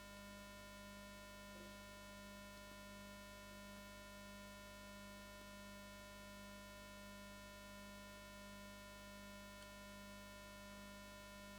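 Near silence with a steady electrical hum made of several fixed tones.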